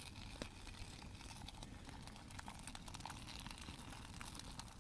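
Faint crinkling and light clicks of an empty freeze-dried meal pouch being handled, over a low steady background hiss.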